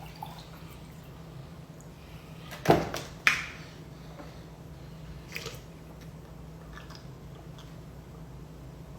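Two short slurping sips of lemonade about three seconds in, then a fainter mouth sound, over a low steady hum.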